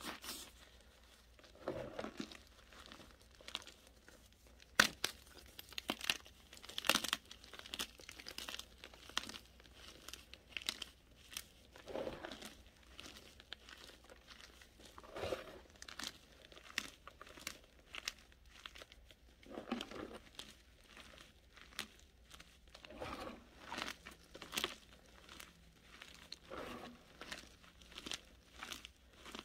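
Hands squeezing and crumbling chunks of dry white powder, giving soft, irregular crunches and crackles with a few sharper snaps.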